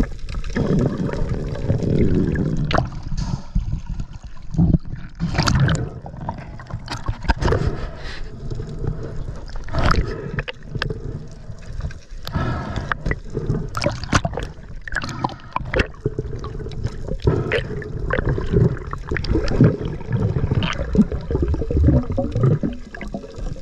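Underwater sound heard through a camera's housing: a muffled gurgling wash of water with many irregular sharp clicks and knocks.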